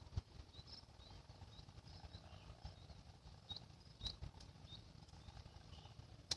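Faint high chirping, short hooked notes a few times a second, over a low rumble, with sharp clicks just after the start, about four seconds in and near the end.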